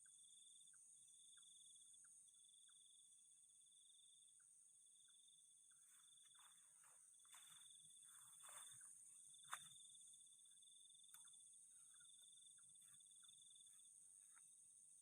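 Faint night insects, crickets: a steady high trill with a second, pulsing chirp beneath it. Soft rustling comes in around the middle, and there is one sharp click about nine and a half seconds in.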